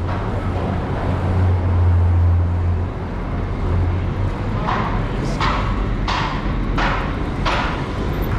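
Wind noise on a handlebar-mounted action camera's microphone as a BMX bike rolls slowly along a city sidewalk, over a steady low rumble of street traffic. In the second half, five short rushes of noise come at intervals of under a second.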